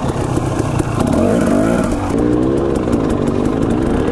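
Dirt bike engine running on a trail ride, its pitch rising and falling with the throttle, with scattered knocks and rattles from the bike over rough ground.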